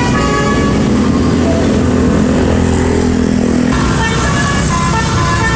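A bus's 'telolet' musical multi-tone horn plays a stepping melody of several notes. It breaks off after about half a second and starts again about four seconds in. In between, a heavy bus engine running is the loudest sound.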